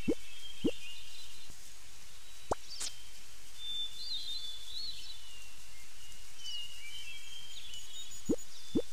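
Outdoor ambience of birds chirping and twittering over a steady hiss. It is broken by a few short rising pops at the start and again near the end, and by a click with a quick upward chirp about two and a half seconds in.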